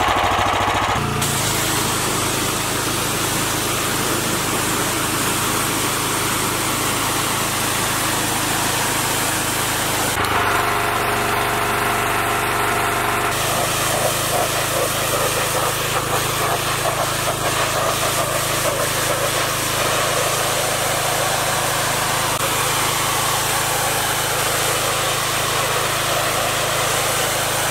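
Predator 420cc gas-engine pressure washer (4,400 PSI) running steadily at full throttle while its wand blasts water at a vinyl fence. Its tone shifts abruptly a few times.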